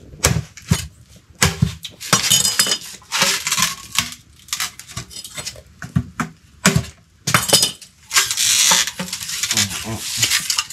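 A blade chopping a section of nứa bamboo: a run of sharp knocks and splintering cracks as the stalk is cut through, with two longer crackling stretches about two and eight seconds in.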